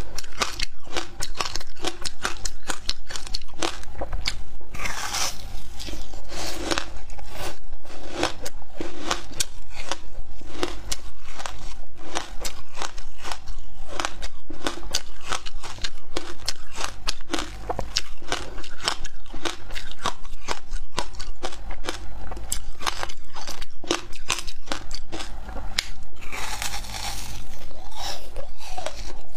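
Ice being bitten and chewed: a dense run of sharp crunches and crackles from a thin frozen slab, with louder crunching bursts about five seconds in and near the end.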